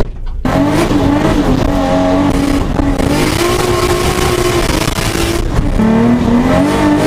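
Toyota Supra's engine heard from inside the cabin, pulling away and accelerating: a loud steady engine note comes in about half a second in, its pitch holding, then dropping sharply near the end as a gear is changed and climbing again.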